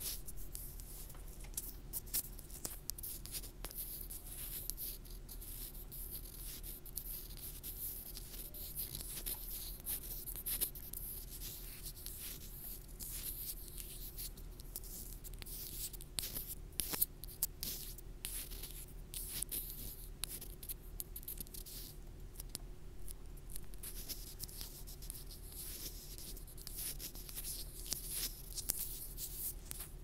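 Fingertips rubbing, scratching and tapping directly on a wired earphone's inline microphone: a steady stream of close, crackly scratches and small clicks, with a low steady hum underneath.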